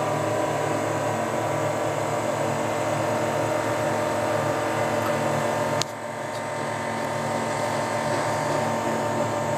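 Potain MCT88 tower crane's hoist drive running steadily while lowering a load, heard inside the operator's cab as a hum with several steady tones. A sharp click about six seconds in, after which the hum drops briefly in level and builds back up.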